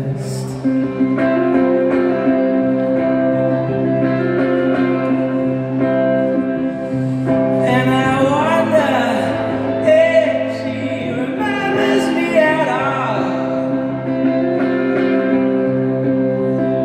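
Live band music: electric guitar and keyboard holding slow, sustained chords, with a voice singing long, wavering notes from about eight seconds in.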